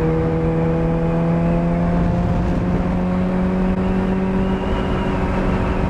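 Honda CBR600RR motorcycle engine running at a steady cruise, its pitch rising slowly as the bike gently gains speed, over a constant low rumble.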